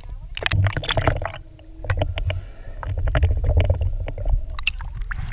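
Muffled underwater noise picked up by an action camera in its waterproof housing: a steady low rumble with quick runs of clicks and crackles, like moving water and bubbles against the case.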